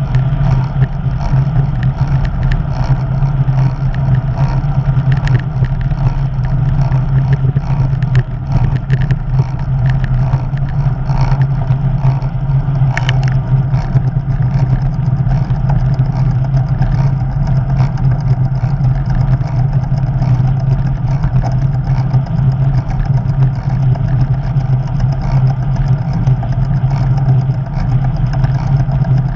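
Steady wind rush and road rumble on an action camera riding on a bicycle rolling along a tarmac road, with a strong, constant low drone.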